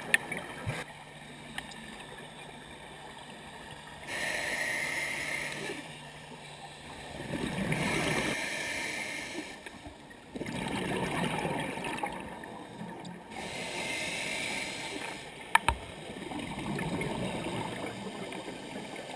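A diver breathing through a scuba regulator underwater: a hissing inhale, then a gurgling rush of exhaled bubbles, repeating every four to five seconds. Two sharp clicks, one right at the start and one near the end, are the loudest sounds.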